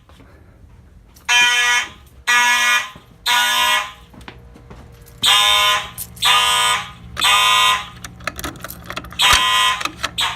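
Simplex fire alarm horns, mechanical and electronic together, sounding in the temporal-three code: two rounds of three short buzzing blasts with a pause between. A third round starts near the end with one full blast and then a brief cut-off one.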